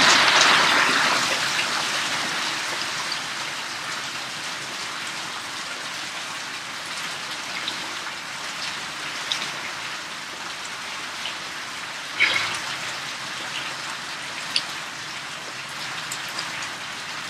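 Rain pouring down, heaviest at first and easing to a steady patter within a few seconds, with scattered sharper drips and one louder splash about twelve seconds in.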